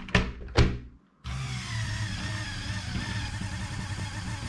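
Two knocks as plastic boxes of screws are set down on a Lego Technic lift platform, then after a short gap a Lego Technic electric motor and its gear train whir steadily, with a faint wavering whine, as the lift raises a load of about 2.7 kg.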